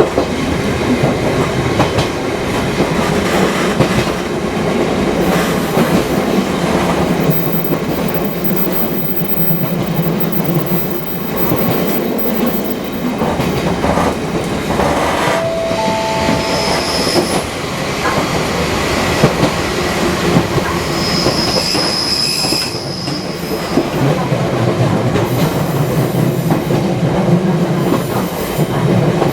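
Fukui Railway 200 series electric railcar running along the track, a steady rumble with wheels clattering over the rails. Short high-pitched wheel squeals come twice around the middle.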